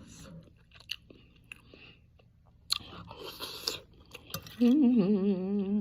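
Close-up eating sounds from a bowl of fried noodles: soft chewing clicks, with a louder crunching burst about three seconds in. Near the end, a voice starts singing or humming a wavering tune.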